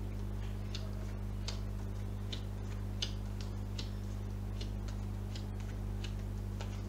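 Oracle cards being handled and dealt onto a cloth-covered table: light, irregular clicks and snaps of card on card, over a steady low hum.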